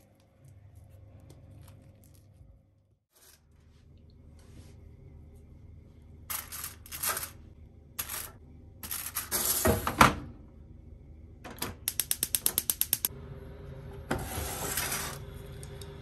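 Aluminium foil crinkling in several bursts as banana halves are laid on a foil-lined toaster-oven tray, then a quick, even run of about a dozen clicks, like the toaster oven's timer dial being turned.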